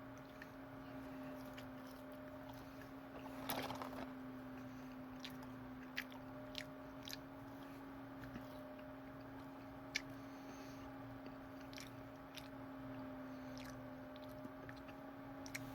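A person chewing French fries dipped in sauce, with faint scattered crunches and mouth clicks. The loudest crunch comes about three and a half seconds in. A steady low hum runs underneath.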